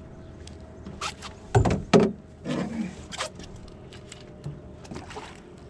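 Scattered knocks, thumps and splashy handling noises as a hooked speckled trout is played and brought in beside a small fibreglass boat; the loudest pair of heavy thumps comes about a second and a half in, with lighter knocks after.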